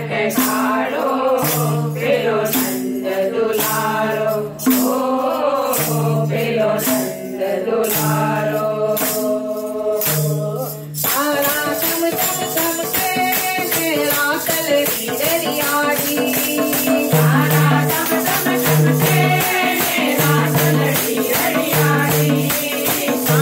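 Women's group singing a Gujarati devotional song in unison, with tabla and hand-held wooden kartal rattles keeping a fast, even beat. About eleven seconds in the rattling becomes denser and more driving.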